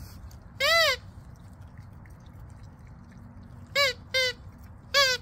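A squeaky toy squeezed four times, each squeak a short high note that rises and falls: once about a second in, then a quick pair and a last one near the end.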